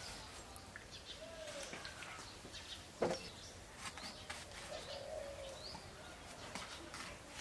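Birds calling, with a few low calls that rise and fall and some small high chirps, over faint clicks of a knife slicing a large eggplant by hand. One sharper knock comes about three seconds in.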